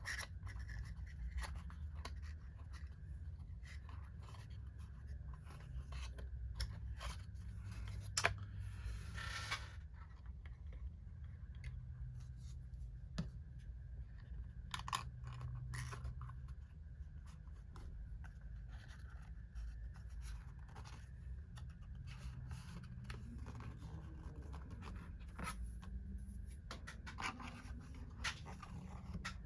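Faint scattered clicks and scrapes of small parts being handled, with a longer scrape about nine seconds in, over a low steady hum.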